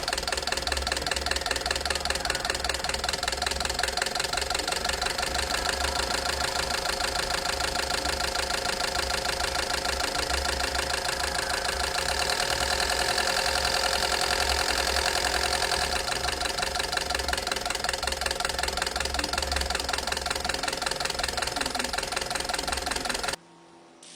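Car engine running steadily at idle, with a fast, even mechanical rhythm; it cuts off suddenly near the end.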